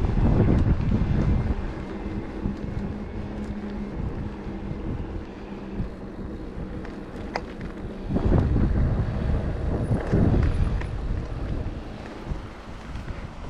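Wind buffeting the microphone and the rumble of riding on a moving e-bike, with a steady low hum through the first half. Louder gusts come at the start and again from about eight to eleven seconds in.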